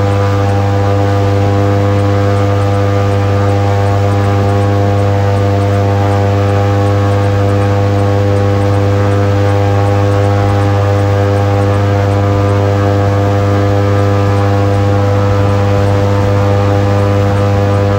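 Airboat's engine and propeller running loud at a steady speed, one even drone that holds its pitch without change.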